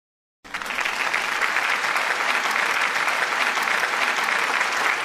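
Applause, many hands clapping in a dense, steady patter that starts suddenly about half a second in.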